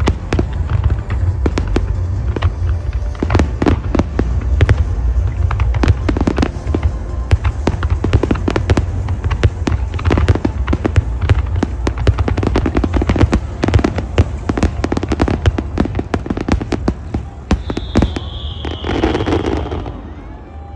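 Fireworks display: a dense, continuous barrage of bangs and crackles over a low rumble. Near the end a whistling shell climbs and bursts.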